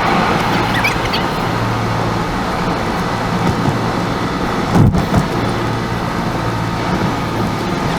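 Car driving on the road: a steady noise of tyres and engine with a low hum, and a brief thump about five seconds in.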